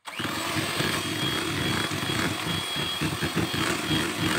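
Electric hand mixer switched on and running steadily, its twin beaters whipping cream with chocolate ganache, with a thin high motor whine over the churning.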